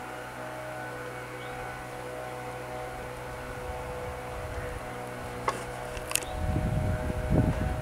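A steady low hum with a few faint higher tones, two sharp clicks a little past halfway, then wind rumbling on the microphone near the end.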